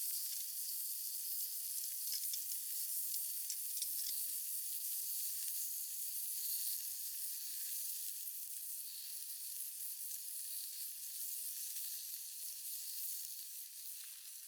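Meat sizzling on a Genghis Khan grill pan over a campfire: a steady high frying hiss with scattered small pops and crackles.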